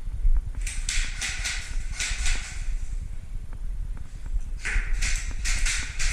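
Footsteps and movement of a player walking with a body-worn camera: a constant low rumble of handling, with four short bursts of crunching and rustling.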